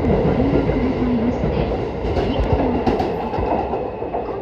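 JR East E233-1000 series electric multiple unit departing, its cars rolling past and fading away as the last of the train leaves the platform.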